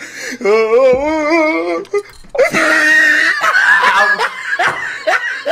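A man laughing hard. For the first couple of seconds the laugh wavers up and down in pitch. After a brief pause, from about two and a half seconds in, it turns harsher and breathier.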